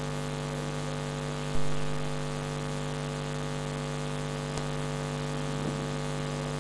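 A steady, even hum of several fixed low tones, with a single sharp thump about a second and a half in and a faint click a few seconds later.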